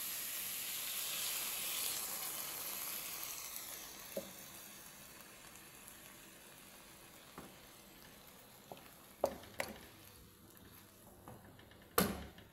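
Canned tuna and vegetables sizzling in a hot wok, the hiss fading away after a few seconds as coconut milk goes in. A few sharp knocks of a spatula against the wok follow, the loudest near the end.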